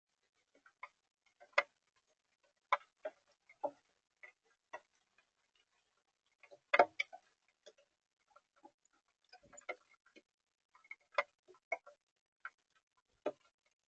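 Raindrops dripping onto a bird feeder and its camera: scattered, irregular ticks and taps, about two a second, uneven in loudness, with the loudest taps near the middle.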